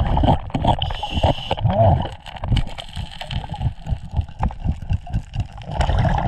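Scuba diver's regulator breathing underwater: hissing breaths and gurgling exhaled bubbles. Scattered clicks and scrapes come from a metal crevice tool worked against bedrock.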